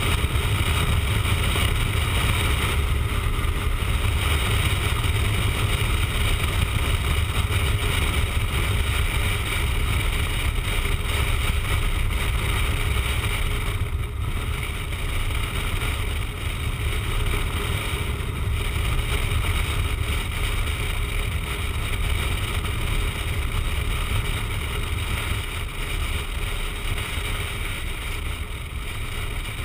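Wind rushing over the camera's microphone on a motorcycle riding at speed, over a steady low rumble from the bike and road. It grows a little quieter in the second half.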